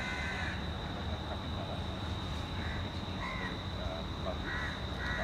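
Crows cawing: several short harsh caws at irregular intervals, over a steady low rumble.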